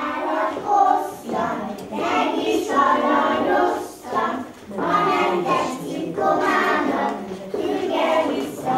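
A group of young children singing a song together with women's voices among them, in short phrases with brief breaths between.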